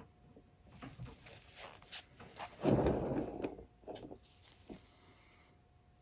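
Handling noises at a work table: a few light knocks and clicks, with a louder, brief rustling scrape about three seconds in.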